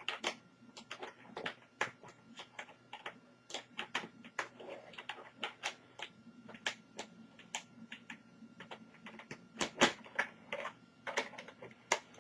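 Irregular clicks and taps of laptop hinge covers and casing being fitted and snapped into place, with a few louder snaps about ten seconds in and near the end.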